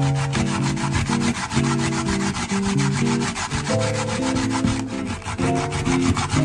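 Daikon radish being grated on a plastic grater: quick, even back-and-forth scraping strokes.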